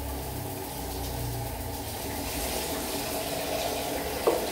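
Kitchen tap running steadily onto pineapple chunks in a bowl as they are rinsed, with two brief knocks near the end.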